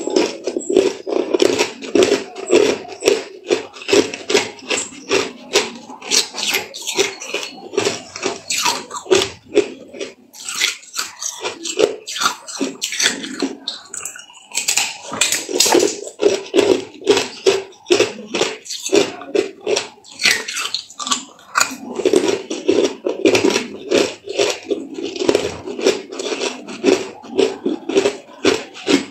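Hard clear ice being bitten and chewed: a dense, continuous run of sharp crunches and cracks.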